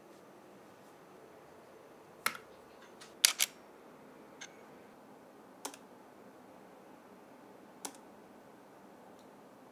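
Canon camera shutter clicking as frames are shot one at a time: about six short sharp clicks spaced irregularly, the loudest a quick pair a little over three seconds in.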